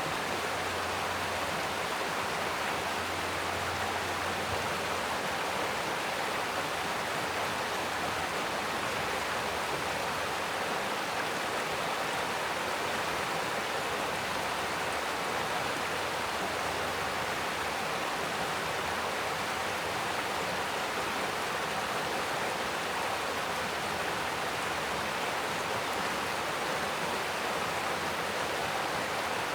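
Mountain stream rushing over rocks: a steady, unbroken wash of water.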